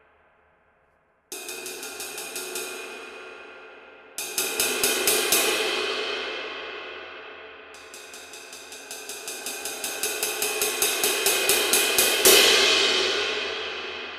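22-inch hand-hammered Turk ride cymbal (2258 g) played with a drumstick in three quick runs of strokes. Each run is left to ring out in a wide wash. The last run grows steadily louder up to a hard accent about twelve seconds in, then rings down.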